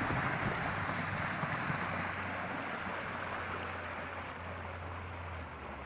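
Small river boat under way: a steady low engine hum with water rushing along the hull and wind on the microphone. The hum drops in pitch near the end and the whole sound eases off as the boat slows.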